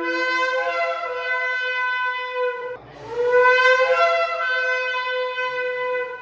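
Shofar (ram's horn) blasts: two long held notes, the second starting about three seconds in, rising in pitch as it begins and louder than the first.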